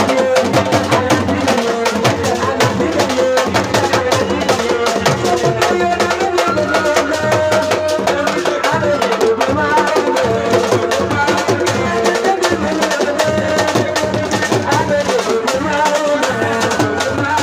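Music with fast, dense drumming and percussion under a held, wavering melody line.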